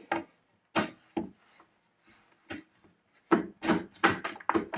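Metal rail of a Kreg circular-saw rip guide being slid into the guide body by hand: a few separate scrapes and knocks, then a quicker run of rubbing strokes near the end.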